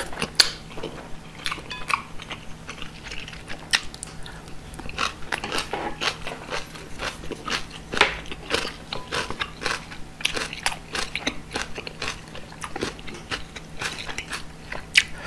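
Close-miked mouth sounds of a person sipping katsuo udon broth from a wooden ladle: slurps, swallows and many small lip and tongue clicks, with a couple of longer slurps in the middle.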